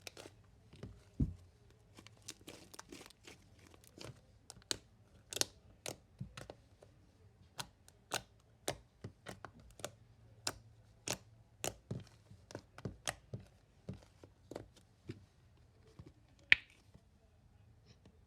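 Hands kneading and pressing a sticky marshmallow slime mixed with face mask, giving a run of sharp clicks and pops, several a second, with one loudest snap near the end.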